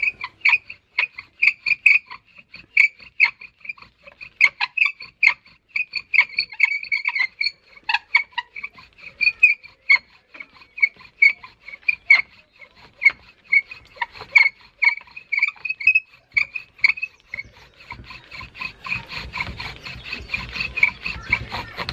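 Bow drill with a dry hazel spindle squeaking loudly as it is spun back and forth in the hearth board, a high squeak with each stroke of the bow, about two to three a second: a real racket. In the last few seconds a rougher grinding noise joins the squeaks.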